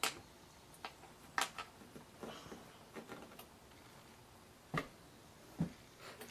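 Handling noise on a plastic toy: about six faint, short clicks and taps spread over several seconds.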